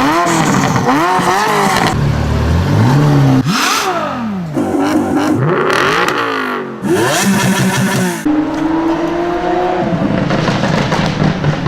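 Ferrari F40's twin-turbo V8 with a custom exhaust revving and accelerating, its pitch rising and falling several times with abrupt breaks, then holding a steadier, slowly rising note for the last few seconds.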